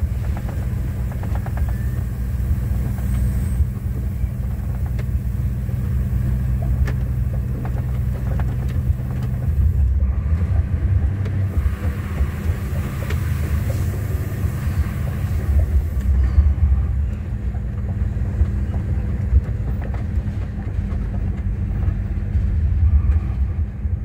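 Heavily loaded six-axle truck's diesel engine running, heard from inside the cab: a steady low drone whose rumble grows heavier about ten seconds in.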